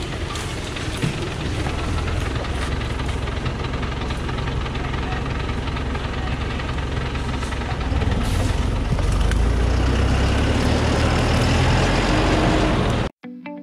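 Thaco Foland truck's diesel engine running under load as the truck crawls in reverse along a rough forest track, growing louder about eight seconds in. The engine sound cuts off suddenly near the end.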